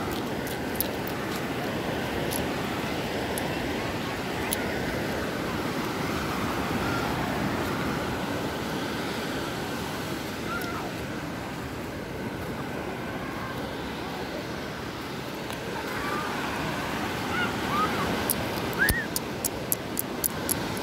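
Steady rushing wash of ocean surf on a sandy beach, with a run of short sharp clicks near the end.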